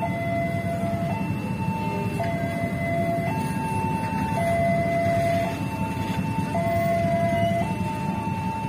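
Railway level crossing alarm sounding its two-tone electronic warning, switching between a lower and a higher tone a little more than once a second, the signal that a train is on the crossing. Under it, the steady rumble of a passenger train's coaches rolling past on the rails.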